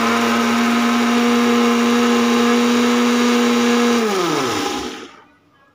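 Electric mixer-grinder (mixie) running steadily at a constant pitch while grinding chutney in its jar. About four seconds in it is switched off and spins down, its pitch falling away over about a second.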